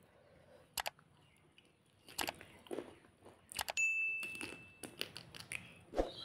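Close-up mouth sounds of eating chicken curry by hand: chewing, smacking and wet sucking as the fingers are licked clean. A short bell-like ding rings out about four seconds in, from a subscribe-button animation.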